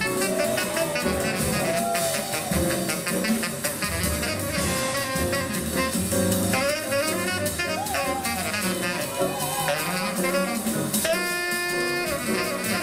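Jazz music with a saxophone-led melody over brass and a drum kit, ending on a long held horn note.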